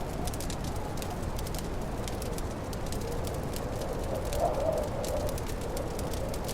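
Wood fire crackling with frequent sharp pops, over a steady howl of snowstorm wind that swells briefly about four and a half seconds in.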